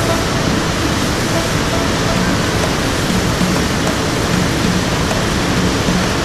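Mujib River water rushing steadily through a narrow sandstone slot canyon, churning around the legs of people wading against the current.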